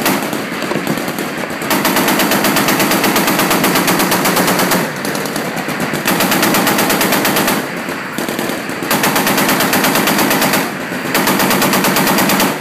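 A machine gun aboard a guided-missile cruiser firing long bursts of about seven shots a second. There are four bursts of one and a half to three seconds each, with short pauses between them.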